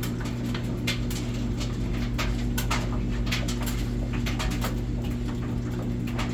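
Samsung VRT front-load washing machine on its spin cycle: a steady motor hum with irregular knocking and banging from the drum, several knocks a second, the sign of a deteriorated, broken spider arm.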